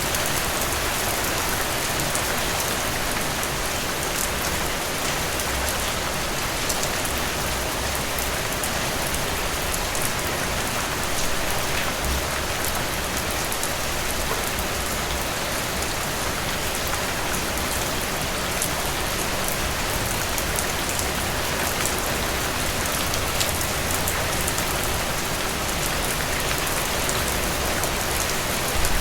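Steady rain falling, a continuous even hiss with many small sharp ticks of individual drops striking a surface.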